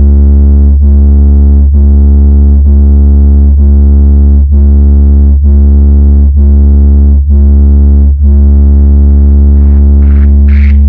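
Heavy, distorted synth bass tone played very loud through a sound system for a sound check. It holds steady with a brief dip about once a second. Near the end, noisy effect sweeps come in.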